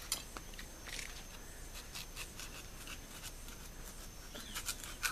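Knife cutting into a dragon fruit on a glass plate: faint scraping and small clicks, growing more frequent near the end, over a faint steady high tone.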